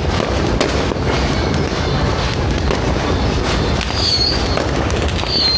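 Fireworks going off in a dense, continuous barrage of crackling bangs, with two short high whistles near the end.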